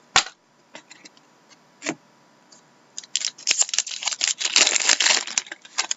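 Trading cards and their packaging being handled by hand: a sharp click, a few light taps, then about two and a half seconds of dense rustling and crinkling near the end.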